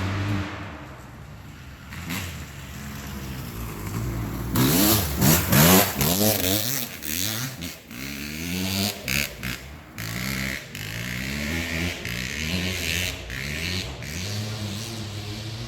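Kawasaki 250 dirt bike engine revving. The pitch climbs and drops again and again as it accelerates and shifts, and it is loudest about five seconds in.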